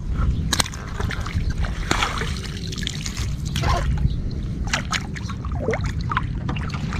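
Swamp water splashing and trickling as a fish is handled in a hand landing net at the surface and the wet net is lifted out dripping, with a scatter of sharp little splashes and clicks.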